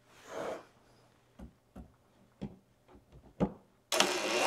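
A few light, separate clicks as the driver bit is seated in a small wood screw in a metal tabletop fastener. Near the end a cordless drill-driver starts up, driving the screw into the wooden top.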